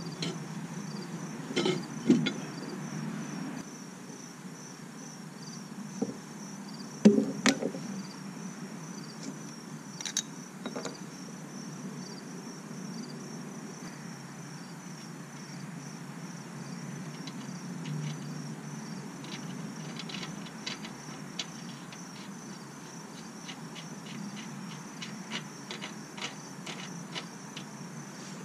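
A trailer brake drum and hub are slid back onto the axle spindle with a few sharp metal clunks, the loudest about seven seconds in. Later come light clicks and clinks of the bearing washer and spindle nut being fitted at the hub. Insects chirp steadily throughout.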